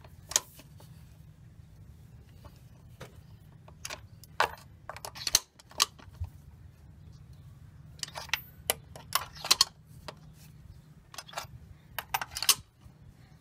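Groups of sharp metallic clicks from a ratchet, socket and extension as a spark plug is turned loose and unscrewed from its well, over a faint low steady hum.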